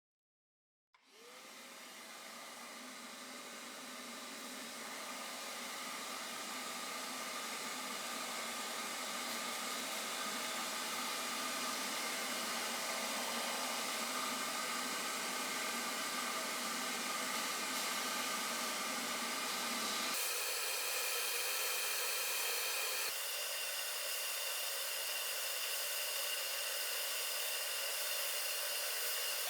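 An electric motor-driven shop tool or blower running steadily, a hissing whir with a whine, starting about a second in and building up over several seconds; its tone changes abruptly twice in the second half.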